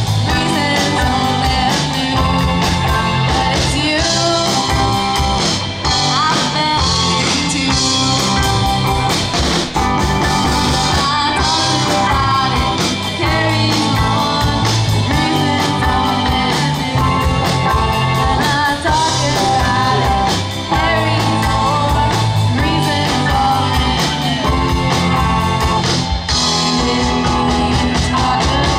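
Live rock band playing a song: a singer over electric guitar, bass and drums with a steady beat.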